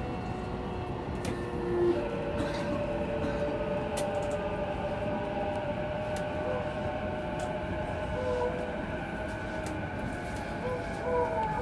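E233-series electric train motor car heard from inside while running: its VVVF inverter whine falls slowly in pitch over steady running noise and scattered clicks as the train slows for a station. A few wavering tones appear near the end.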